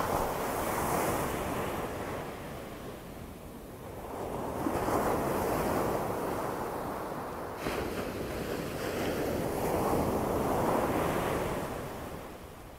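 Ocean surf breaking and washing up a sandy beach, the rush of water swelling and easing about three times, with some wind rumble on the microphone.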